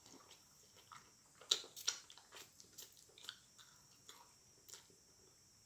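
Soft, close-miked chewing and biting of food: scattered wet mouth clicks and smacks, the sharpest two about a second and a half and two seconds in.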